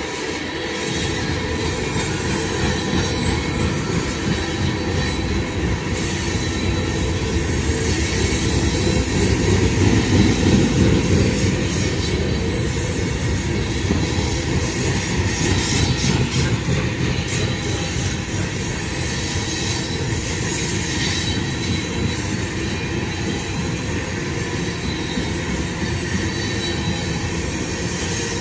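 Loaded coal gondola cars rolling past at speed: a steady heavy rumble of steel wheels on the rails that swells about ten seconds in, with a faint thin wheel squeal above it.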